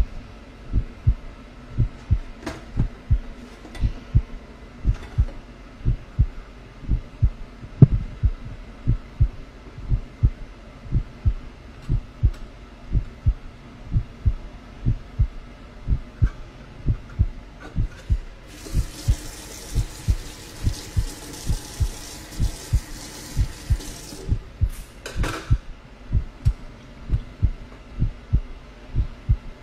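A steady heartbeat of regular low thumps runs throughout. Stainless-steel cutlery clinks now and then on a metal draining rack, and a tap runs water into the sink for about five seconds about two-thirds of the way in.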